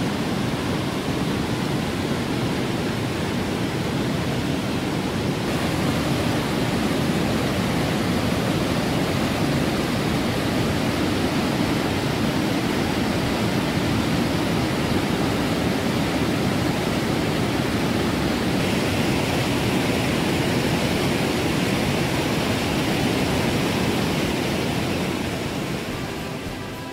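Steady, loud rush of the Triberg waterfalls' white water, the Gutach tumbling in cascades over granite boulders, fading down near the end.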